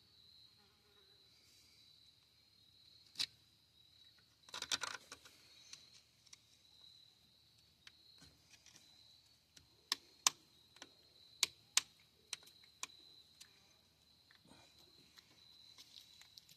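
Scattered faint sharp metallic clicks and taps of hand tools working at the rusted retainer ring of a front wheel hub: one a few seconds in, a short cluster soon after, and a run of single clicks in the second half. Under them runs a steady high-pitched buzz.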